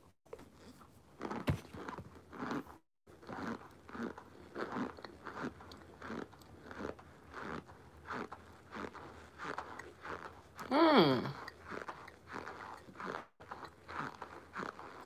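Close-up mouth chewing and crunching crumbly chunks from a homemade, microwave-baked powder brick, about two to three crunches a second. About eleven seconds in there is a brief, louder vocal hum.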